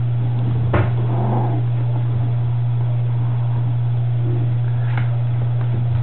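A steady low hum, with a sharp click about a second in and another near the end, and faint noises from puppies.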